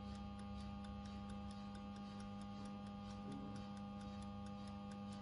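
Faint steady electrical hum with a faint, even ticking of about four ticks a second.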